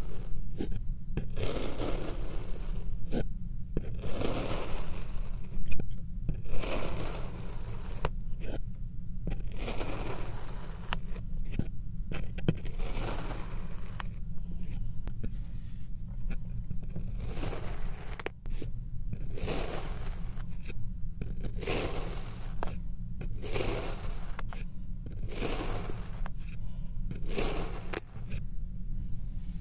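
Red kinetic sand being sliced with a white plastic knife: a soft, gritty scrape with each cut, repeated about every one to two seconds over a steady low hum.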